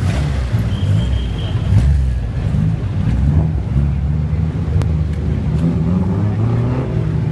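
Classic Japanese cars' loud aftermarket exhausts rumbling steadily at low revs, a Datsun 510 Bluebird pulling past close by with others running behind it.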